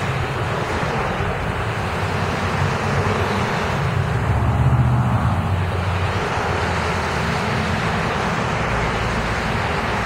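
Street traffic: cars and a bus driving past on the road, with wind buffeting the microphone. The traffic swells louder for a moment about four to five seconds in.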